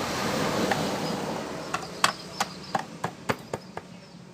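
A noisy swell of passing traffic, then a quick run of about eight sharp knocks over two seconds.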